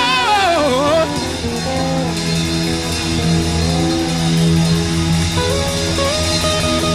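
Live church band music: a singer's voice slides down and ends about a second in, then the instruments play on without singing, with guitar and a steady bass.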